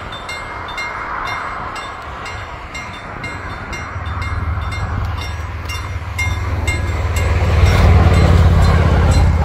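Level-crossing warning bells ringing in a fast, steady beat while a Regina X50 electric multiple unit approaches and passes the crossing. Its rumble builds from about four seconds in and is loudest near the end as the train crosses.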